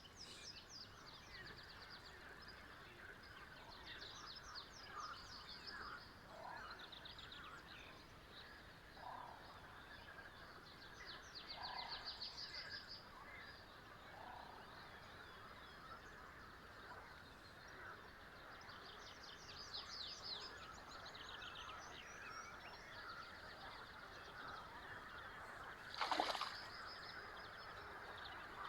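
Several birds singing, with many rapid high trills and chirps and a lower short call repeated every few seconds, over a steady hiss of outdoor background noise. A brief louder sound stands out near the end.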